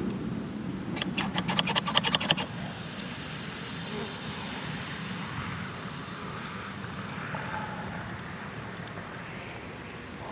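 Wind on the microphone, a steady low rush. About a second in comes a quick run of sharp crackling clicks lasting about a second and a half.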